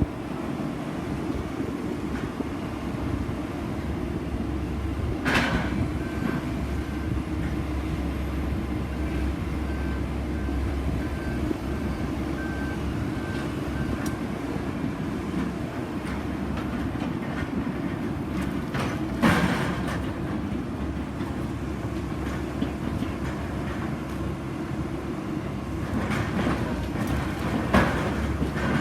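Soilmec SR-series drilling rig working: a steady heavy-machinery rumble with three sharp metallic clanks spread through it.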